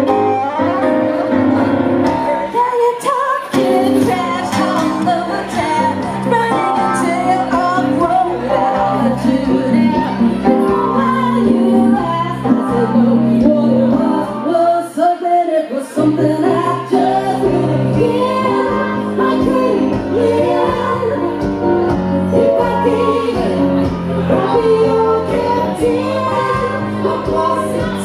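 Live music: a woman singing over electric keyboard (a Roland stage piano) and acoustic guitar. The low notes drop out briefly twice.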